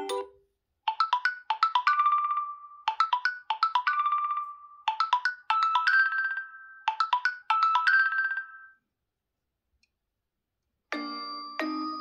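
OnePlus 9 Pro ringtone: a bright, chime-like melody of quick note runs, one two-part phrase repeated four times, stopping about three-quarters of the way through. About a second before the end a different, fuller ringtone begins.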